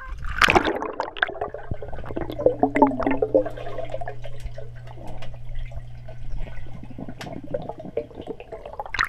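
Swimming-pool water heard from under the surface: a splash as the camera plunges in, then muffled sloshing and bubbling with small clicks over a steady low hum, and another splash near the end as it breaks back through the surface.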